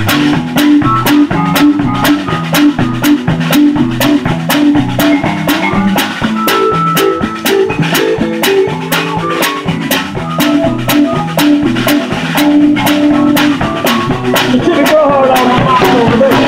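A live rock band heard close up from behind the drum kit: steady cymbal and drum strokes over a stepping bass line. Near the end the drum beat drops out and bending guitar notes carry on.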